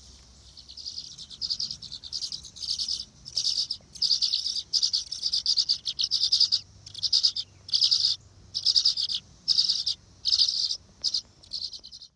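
Tree swallow nestlings chirping in a nest box: high, rapid chirping in bursts about once a second, building up over the first two seconds.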